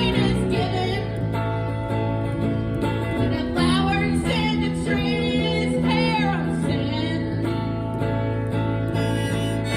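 Live acoustic blues: guitar playing under a melody line that bends up and down in pitch.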